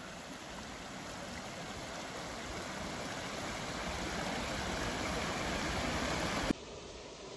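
Rushing water of a waterfall, a steady hiss that slowly grows louder, then cuts off abruptly about six and a half seconds in to a quieter hiss.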